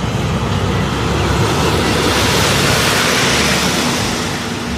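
A semi-truck tractor driving past: engine and tyre noise swells to a peak around the middle and then eases off toward the end.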